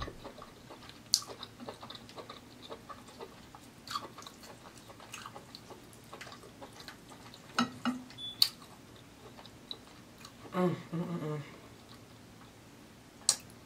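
Close-up eating sounds: fingers pulling apart boiled crab shell, with scattered sharp cracks and snaps, and wet chewing between them. A short hummed voice sound comes near the end.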